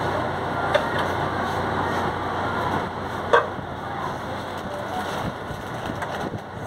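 Supermarket ambience: a steady background hum and hiss, broken by a few short knocks, the loudest a little over three seconds in.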